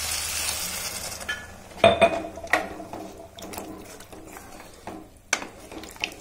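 A glass of water is poured into a hot pan of frying masala and soya chunks, and the sizzle fades out over the first second or so. Then a wooden spatula stirs the watery curry, knocking and scraping against the pan several times.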